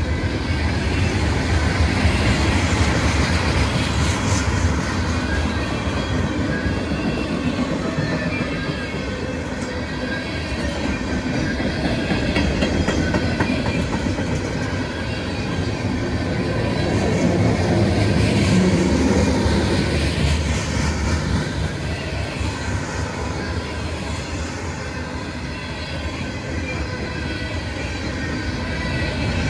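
CSX freight train's cars rolling past: a steady rumble of steel wheels on rail, with scattered clicks, swelling louder for a while about two-thirds of the way through.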